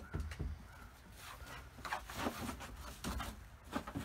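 Hens in a coop clucking softly, with scattered scratching and a few light knocks.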